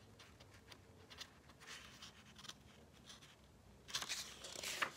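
Faint rustling and small ticks of a paper picture book being held, then a louder rustle of paper near the end as a page starts to turn.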